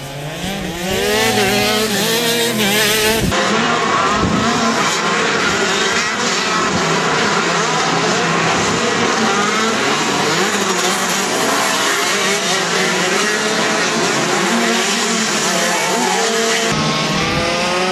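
Several 125 cc two-stroke racing kart engines revving and easing off as a pack of karts laps the circuit, the pitches of the different engines rising and falling over one another.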